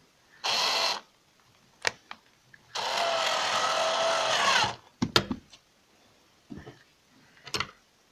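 Electric screwdriver driving the screws of a sofa's metal connecting bracket: one short run, then a longer run of about two seconds that slows as it stops. A few sharp clicks and knocks come in between and after.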